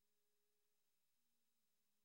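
Near silence: no audible sound.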